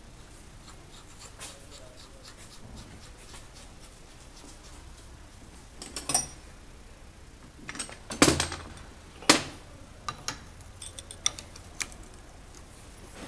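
Scattered sharp metal clinks and knocks from handling a suspension strut assembly with its coil spring and strut top mount. The loudest knock comes about eight seconds in, followed by a run of light ticks.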